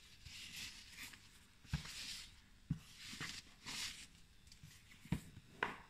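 Faint rustling of a satin ribbon being pulled loose and slid off a cardboard gift box, with a few soft taps as hands handle the box.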